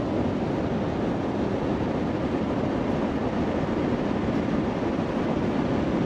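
Large ocean waves breaking: a steady, even rush of surf noise.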